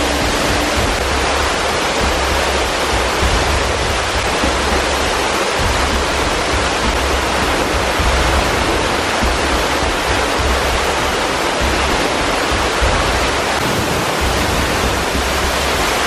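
Waterfall pouring onto rocks, heard up close: a loud, steady rush of water.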